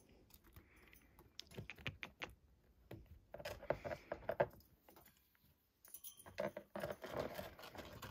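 Faint scattered clicks, taps and rustles, coming in three short clusters.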